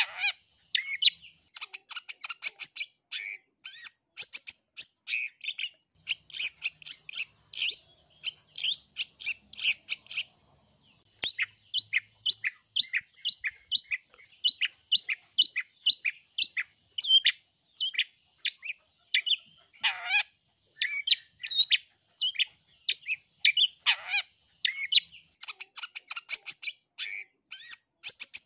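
Long-tailed shrike (cendet) singing a long, varied song of short, sharp chattering notes. Through the middle it settles into an even series of about two notes a second. Twice in the second half a harsher note sweeps steeply downward.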